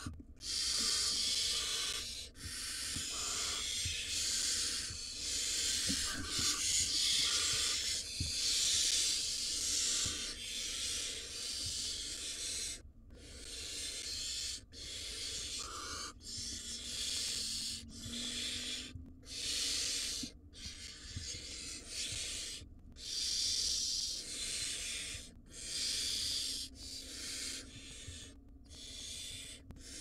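Barn owl nestlings giving their hissing, rasping begging calls over and over, several chicks overlapping, each call lasting a second or two with brief gaps between.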